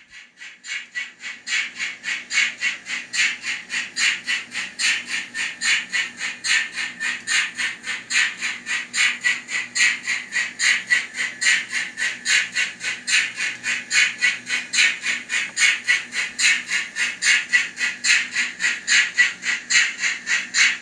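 Digital steam chuff from a LokSound Micro v4 sound decoder, played through a tiny Knowles speaker in an N scale Lemke BR 02 4-6-2 steam locomotive as it runs. It is a steady, thin, high-pitched rhythm of about four chuffs a second that builds up over the first second or two, with a faint steady hum underneath.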